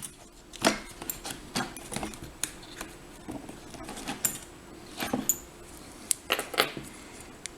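Small metal clicks and taps at irregular intervals: lock cylinder parts and a plug follower being handled while a Kryptonite six-pin lock is taken apart.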